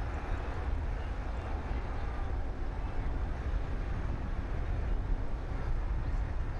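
Steady low rumble and rushing noise of a C919 airliner moving fast along the runway on its landing roll.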